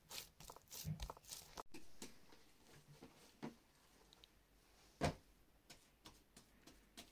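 Faint, irregular soft pats and squishes of hands kneading bread dough in a plastic bowl, with one louder thump about five seconds in as the dough is put into another plastic bowl.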